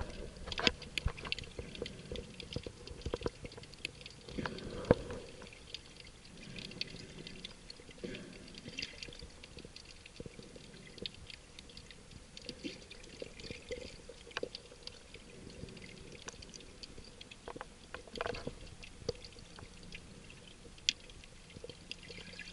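Underwater ambience heard through a submerged camera: a faint wash of moving water with scattered clicks and crackles and a few sharper knocks.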